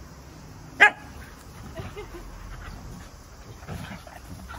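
Akita dogs play-fighting: one sharp bark about a second in, the loudest sound, then scattered shorter, quieter growls and yips as they wrestle.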